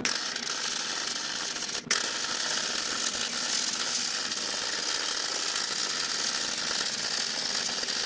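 Gas-shielded MIG welding arc from a Deca Decastar 150E, crackling and hissing steadily as a fillet weld is laid with the torch weaving up and down. The arc cuts out for an instant about two seconds in, then carries on.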